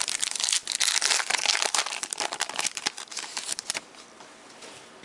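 Crinkling and tearing of a trading-card pack's wrapper being opened by hand, a dense run of crackles that dies down about four seconds in.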